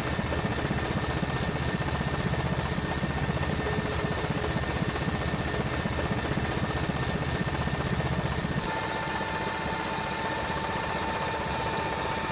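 Helicopter noise heard from the aircraft: a steady rotor and engine rush with a low beating. About nine seconds in it changes abruptly to a thinner sound with a steady high turbine whine.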